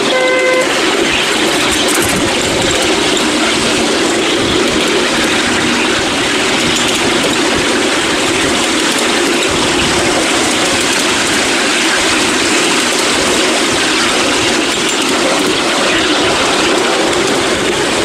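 Ride-on miniature railway train hauled by a battery-electric BR class 20 model locomotive, running along the track with a steady rumble and rattle of wheels on rail. It opens with a brief horn toot.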